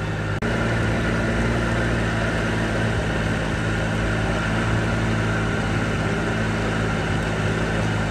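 Small boat's motor running steadily underway, a constant low drone over a hiss of water and wind.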